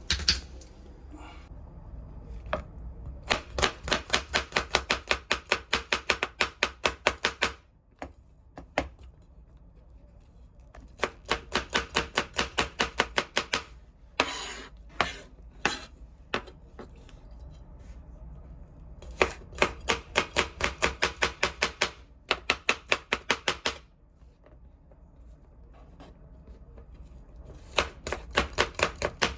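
Kitchen knife chopping on a cutting board in four quick runs of about five or six even strokes a second, with a few single knocks between runs.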